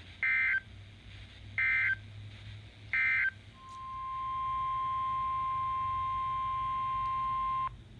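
Emergency Alert System SAME header: three short bursts of screeching digital data tones, then a steady single-pitch attention tone that holds about four seconds and cuts off abruptly. This is the weather radio alert signal announcing a new warning.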